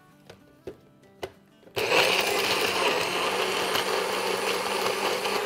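Personal bullet-style blender switching on about two seconds in and running steadily, grinding roasted tomatoes, onion, roti and chicken broth into a purée. A few light clicks come before it starts.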